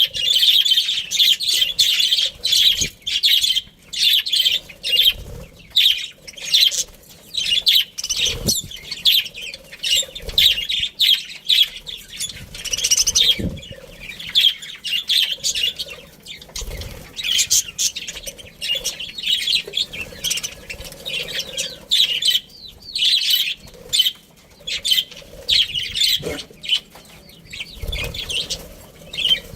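A colony of budgerigars chirping and chattering, many short high chirps overlapping without a break.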